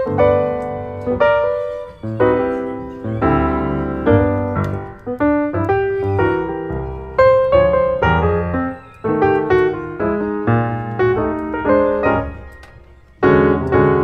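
Background music: a piano playing a lively tune in quick, separately struck notes, fading briefly near the end before coming back in.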